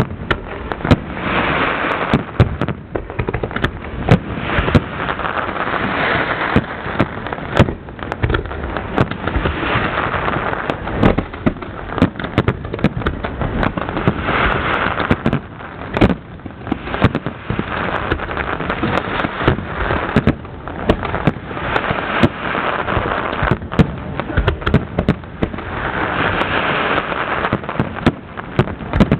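An aerial fireworks display: a steady run of sharp bangs, with dense crackling from the shell bursts swelling every few seconds.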